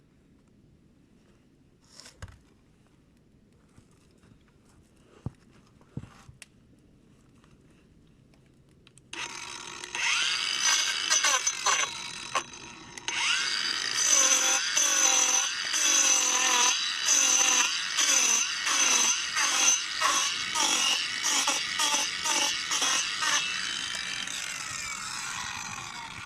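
Wood being sawn in quick, regular strokes, just under two a second, starting suddenly about nine seconds in after a few faint clicks.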